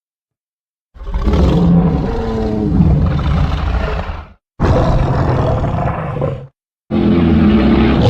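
Monster roar sound effects for a custom creature, the Tkarisaurus Rex. After about a second of silence come three deep, rough roars, each a few seconds long, separated by short silent gaps.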